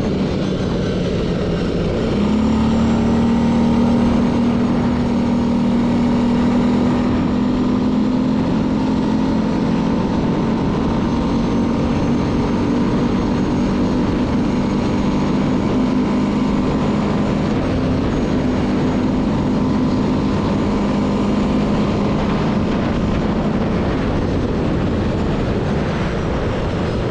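Hytrack 500 quad's engine running steadily under way, with a steady droning tone that comes in about two seconds in and fades near the end. The rider hears a strange noise from the quad that he fears is an expensive one.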